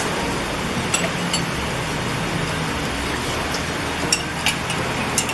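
Sweet and sour sauce bubbling in an aluminium wok over a gas burner: a steady hiss with a low hum beneath, and a few sharp clicks from about a second in.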